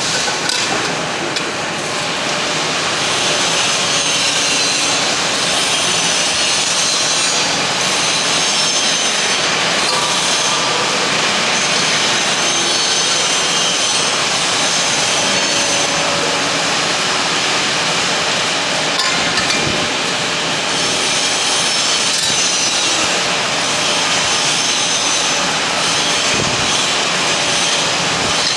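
Hydraulic CNC press brake running, a steady mechanical whirring roar with a faint high whine throughout.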